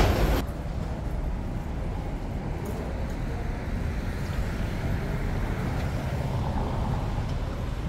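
Steady low rumble of a vehicle running, after an abrupt drop in loudness a moment in.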